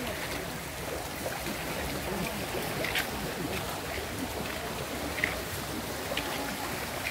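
River water rushing steadily, with a few brief sharper sounds about three, five and six seconds in.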